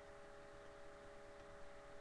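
Near silence: room tone with a steady hiss and a faint steady hum.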